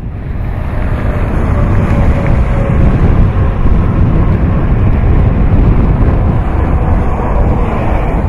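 Steady low rumbling roar of noise that fades in at the start.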